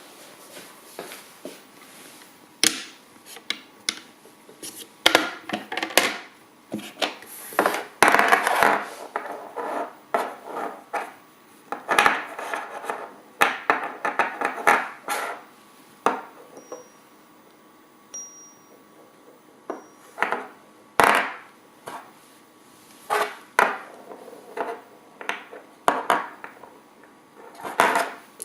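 Small steel spinning top rattling and clattering on a magnetic stirrer, with irregular bursts of sharp knocks of uneven loudness.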